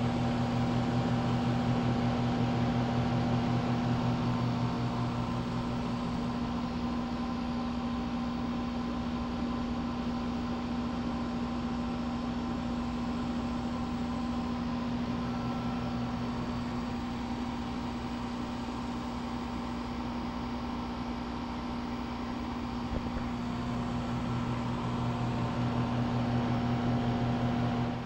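Bryant Preferred Series 3-ton central air conditioner condenser running steadily: a low compressor hum under the rush of the condenser fan. The unit is running normally.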